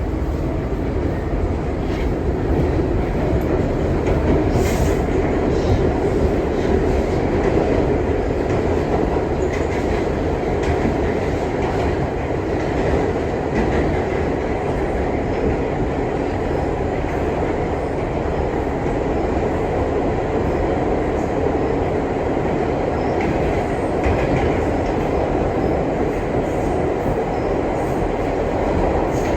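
R62 subway car running along the track, with a steady rumble of wheels on rail and faint scattered clicks.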